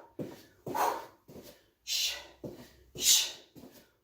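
Short, sharp breathy exhales, about two a second, timed with kickboxing strikes and kicks, along with shuffling movement.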